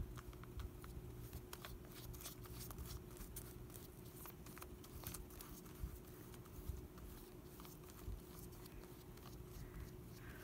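Paintbrush dabbing and stroking Mod Podge glue onto a paper journal page: faint, scattered scratchy ticks and taps of bristles and brush against the paper, over a steady low hum.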